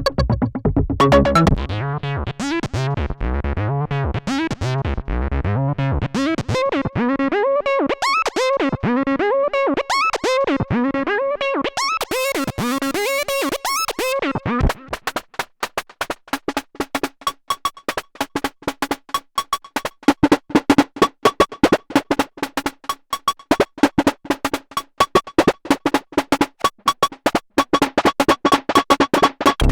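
Roland SE-02 analog monophonic synthesizer playing a sequenced pattern. A low beat stops about two seconds in. For the first half, sustained notes swoop with filter sweeps; about halfway through it switches to a fast run of short, clipped notes.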